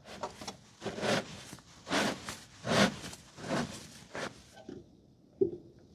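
Large filter wrench turning the top cap of a diesel water-fuel separator housing loose: a series of rasping, rubbing strokes about one a second, then a single short knock near the end.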